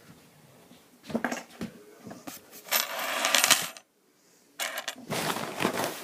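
Small metal objects clattering and jingling as they are rummaged through. A few knocks come about a second in, then two bursts of rattling, each a second or more long, in the middle and near the end.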